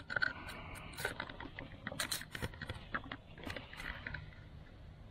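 Camera handling noise: scattered light clicks, taps and scrapes at irregular times as the camera is moved about.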